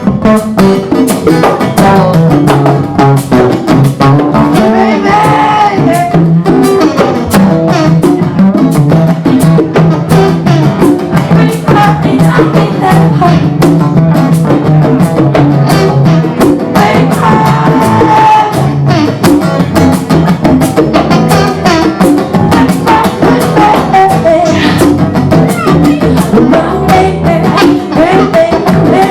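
Live acoustic band music: strummed acoustic guitar driven by hand-drum percussion at a steady beat, with brief melodic lines over the top.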